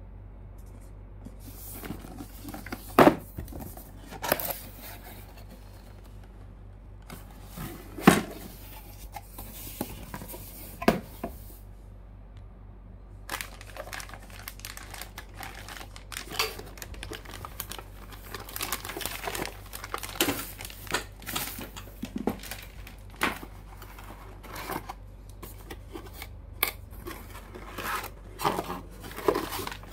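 Handling of a cardboard motherboard box and the plastic anti-static bag around the board: a few sharp knocks and snaps of the cardboard in the first half, the loudest about three and eight seconds in, then steady crinkling and rustling of the bag.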